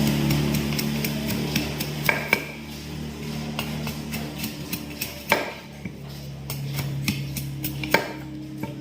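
Sharp taps and a few louder knocks, as of hand tools working on wood or metal, over a steady low hum.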